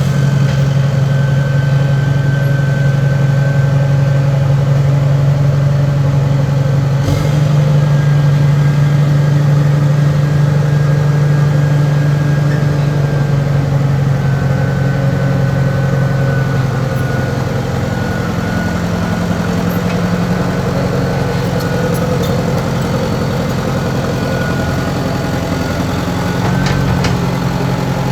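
An engine running at a steady speed, its pitch and loudness shifting a little now and then, with a sharp click about seven seconds in.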